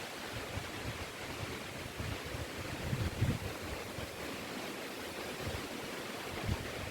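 Wind blowing through forest trees: a steady rushing hiss, with low buffeting of wind on the microphone, strongest about three seconds in.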